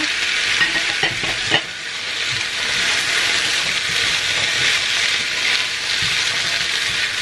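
Chicken meatballs with diced potato, carrot and onion sizzling in oil in a nonstick frying pan, stirred with a silicone spatula. A steady, even sizzle, with a few light spatula knocks about a second in.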